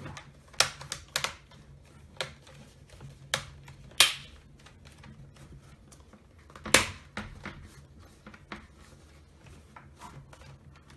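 Plastic screen bezel of a Lenovo ThinkPad W530 snapping onto the display lid: a string of sharp, irregular clicks as its clips are pressed into place along the edges, the loudest about four seconds in and again near seven seconds.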